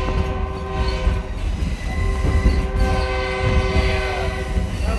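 A locomotive's multi-chime air horn sounding a long, held chord, heard from inside the caboose. Under it runs the low, steady rumble of the car riding the rails.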